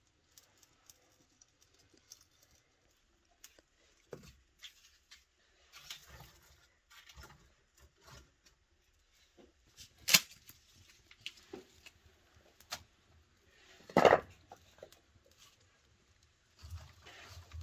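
Wood fire being lit in a brick stove's firebox: scattered small crackles and ticks from the kindling, with two louder knocks as split wood is handled, one about ten seconds in and a louder one about fourteen seconds in.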